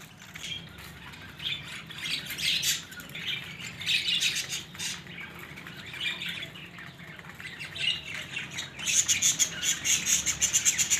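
Small birds chirping in short bursts, breaking into a fast, high twittering about nine seconds in.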